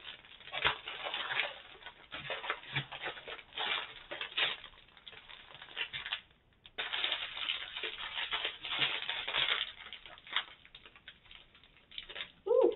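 Small plastic bags of diamond painting drills crinkling and rustling as they are dug through by hand, with a short pause about six seconds in.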